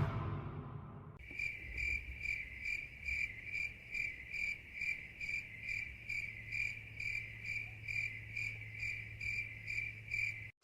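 Cricket chirping: an even train of short, high chirps, about two a second, starting about a second in as the previous sound dies away. It is the stock 'crickets' effect used to mark an awkward silence.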